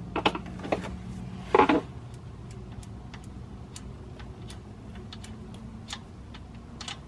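Oil drain plug on a Camaro's oil pan being spun out by hand after being loosened with a ratchet: faint, irregular light clicks and ticks of fingers and the metal plug, with two or three louder clacks in the first two seconds.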